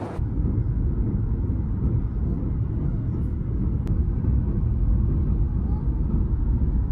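Steady low rumble of a Boeing 737 MAX 8's engines and airflow heard inside the cabin, with one sharp click about four seconds in.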